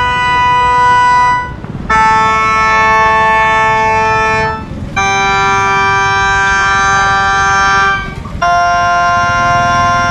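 School drum band's wind section playing long held notes, each about three seconds, with short breaks between. The first three step down in pitch and the fourth rises back up.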